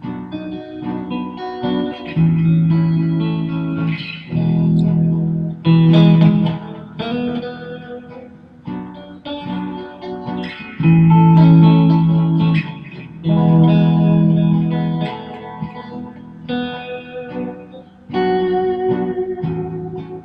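Fender Stratocaster electric guitar played through an amplifier: phrases of ringing single notes and chords, a second or two each, with quieter gaps between them.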